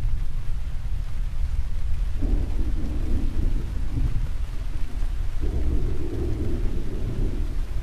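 Rolling thunder rumbling continuously under steady rain. The rumble swells twice, about two seconds in and again past the halfway mark.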